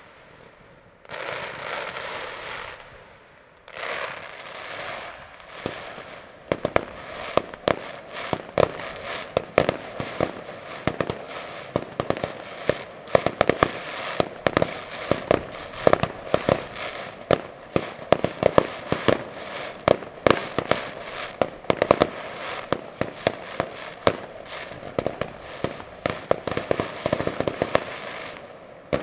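Aerial fireworks display: crackling hiss in waves for the first few seconds, then from about six seconds in a dense run of sharp bangs and crackles, several a second.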